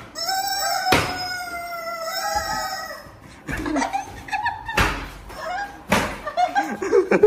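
Rubber squeaky chicken toy squawking in one long drawn-out squeal, then in shorter squeals. A leather belt cracks sharply against the floor or wall several times: about a second in, then about three and a half, five and six seconds in.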